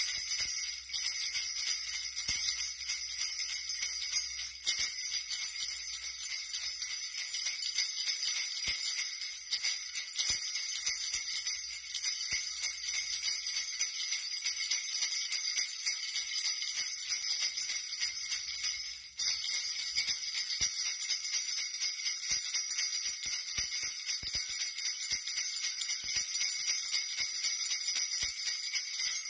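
A strap of small metal jingle bells (sleigh bells) shaken continuously in a dense, bright jingle, with one brief break about two-thirds of the way through.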